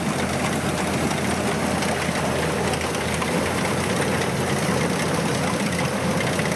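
Kubota DC95 combine harvester's diesel engine and machinery running steadily under load as it cuts standing rice: a continuous mechanical drone.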